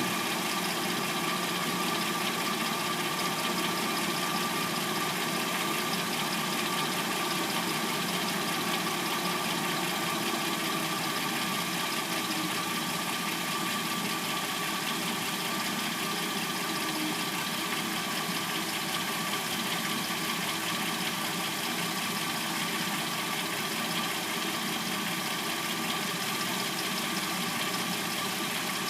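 A Hyundai Sonata's replacement engine idling steadily once warmed up. It makes a clacking noise that the owner assumes comes from the timing chain.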